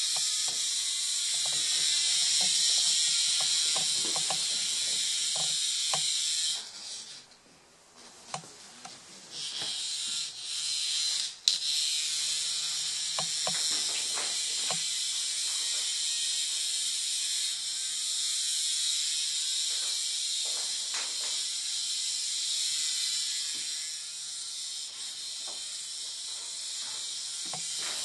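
Hexbug Nano toy's tiny vibration motor buzzing as it skitters on a tile floor, a steady high buzz that drops out for a few seconds about a quarter of the way in and then runs on, with scattered light taps.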